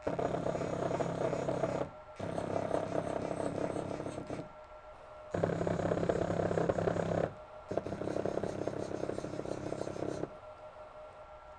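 Stepper motor running unmounted with no load, jogged from the CNC controller's pendant. It runs in four spells of about two seconds each, with short pauses, giving a steady buzzing hum.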